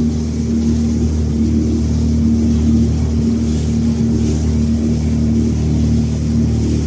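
Williams 280 inflatable tender's engine running under way at a steady pitch, with a faint hiss of wind and water.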